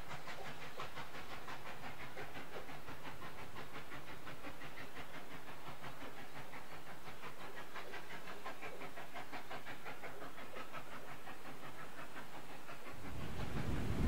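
Steam train running, with a rapid, steady rhythm of beats and a hiss of steam. Wind rumbles on the microphone near the end.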